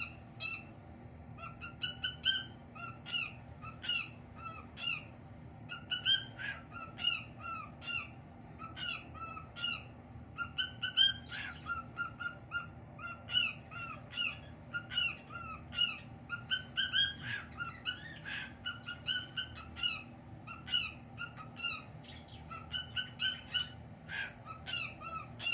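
Cockatiel singing: runs of short whistled chirps, several a second, broken by brief pauses.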